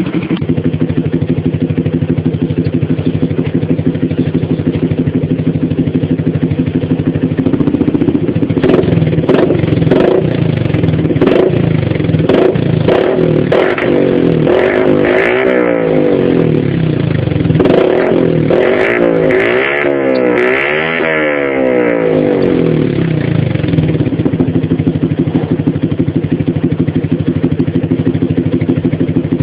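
Motorcycle engine running through a 4N 'big bullet diamond' aftermarket exhaust with its stock fiberglass-packed muffler. It idles steadily, is blipped in short revs about a third of the way in, then revved in longer rises and falls, and settles back to idle near the end.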